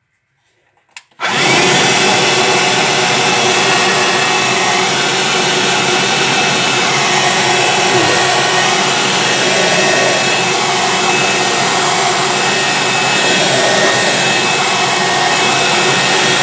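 Handheld vacuum cleaner switched on about a second in with a click, then running steadily with a loud motor and fan whine. It is running without one of its parts connected, which the owner thinks is why it is not sucking properly.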